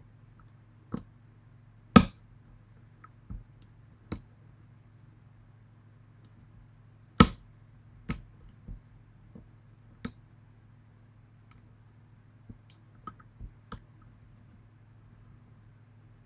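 Irregular sharp clicks of a lock pick working the spool pins of a Union pin-tumbler lock, the two loudest about 2 and 7 seconds in, over a faint steady low hum.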